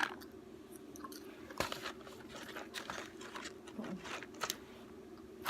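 Faint, scattered clicks and crunchy crackles close to the microphone, from handling fast-food fries and their packaging, with one sharper click about a second and a half in.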